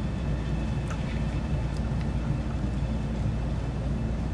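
Steady low background hum, with two faint clicks about one and two seconds in; no continuity beep sounds.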